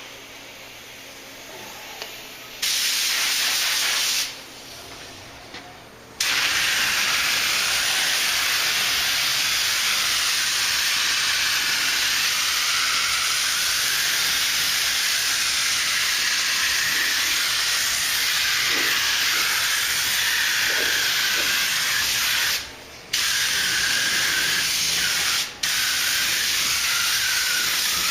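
Compressed-air paint spray gun hissing as it lays on the first coat of clear, in trigger pulls: a short burst about three seconds in, then a long pass of about sixteen seconds, then shorter passes broken by brief releases of the trigger.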